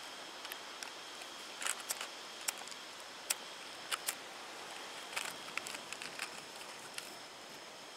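Small handheld firework fizzing with a steady hiss and irregular sharp crackles and pops, over two faint steady high tones.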